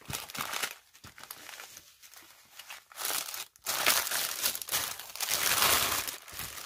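Clear plastic packaging bags crinkling as they are handled. The crinkling is faint for the first couple of seconds, then louder and more continuous from about three seconds in.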